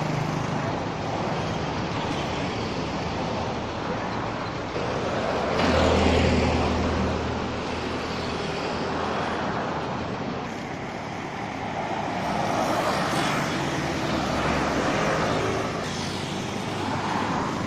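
Road traffic passing on an open roadway: a steady rush of vehicles going by. It swells as a heavy vehicle with a low engine drone passes about six seconds in, and swells again later.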